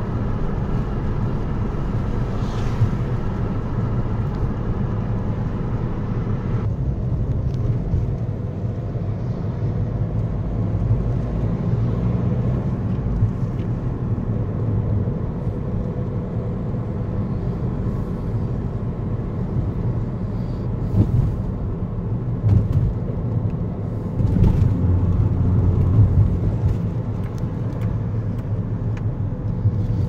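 Car cabin noise while driving: a steady low engine and road rumble heard from inside the car, with a hiss above it that drops away about seven seconds in.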